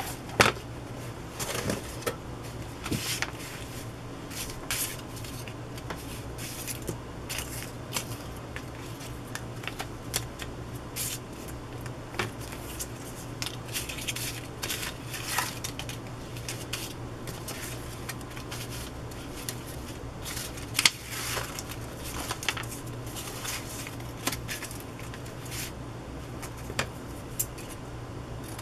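Paper scraps rustling and crinkling as hands sort through a pile of them, with irregular sharp ticks and taps scattered throughout.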